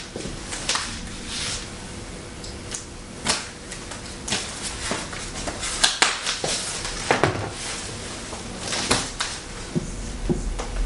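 Scattered light handling sounds: rustling of paper sheets and small irregular clicks, with a marker starting to write on a whiteboard near the end.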